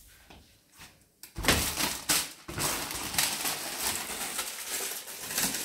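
Plastic-wrapped food packages rustling and crinkling as they are handled and shifted on pantry shelves, starting about a second and a half in.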